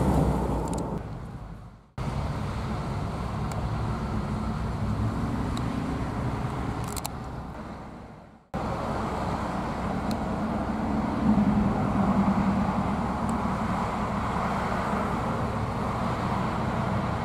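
Steady motor-vehicle and traffic rumble with no single clear source. It fades away to silence about two seconds in and again past the middle, coming back abruptly each time.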